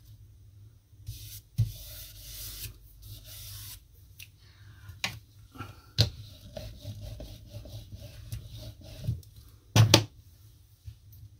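Paper pieces being slid and rubbed down by hand, with several sharp taps and a louder double knock near the end.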